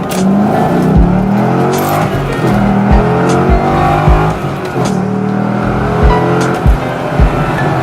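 Chevrolet Corvette C6 Grand Sport's 6.2-litre LS3 V8, breathing through an aftermarket Air Raid cold air intake, accelerating on the road. Its note climbs in pitch several times, with a few low thumps along the way.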